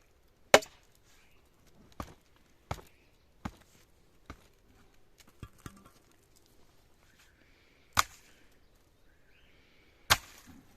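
A tool striking wood in about nine sharp, irregularly spaced blows. The loudest come near the start, about eight seconds in and near the end.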